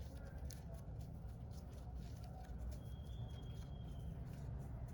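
Faint rustling and small clicks of ribbon being handled and pulled open by hands, over a low steady room hum. A thin, high, steady whistle sounds for just over a second about three seconds in.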